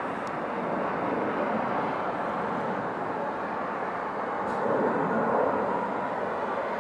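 Airbus A320-214 jet engines (CFM56-5B turbofans) at climb power just after takeoff: a steady rumble that swells a little about five seconds in.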